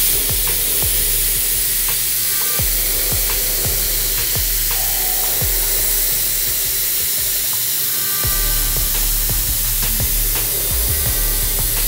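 Pneumatic seam-sealer gun hissing steadily with compressed air as it lays a bead of body sealer along a hem seam.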